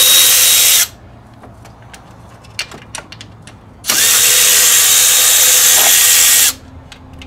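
Cordless electric ratchet spinning a 13 mm socket in two short runs, loosening the bolts that hold a power steering reservoir. One run stops under a second in, and the second starts at about four seconds and runs for two and a half seconds. Light clicks and knocks come between the runs.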